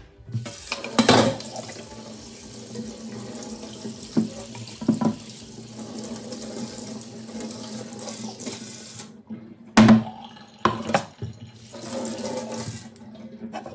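Kitchen tap running water onto a wooden cutting board being rinsed over a stainless steel sink. A few sharp knocks cut through the water, the loudest about ten seconds in, just after the water breaks off briefly.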